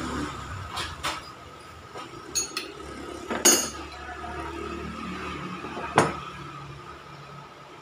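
Metal clinks and clicks from a wrench and puller tool working on a car AC compressor's clutch. The clutch plate comes off, with two louder ringing clinks about three and a half and six seconds in.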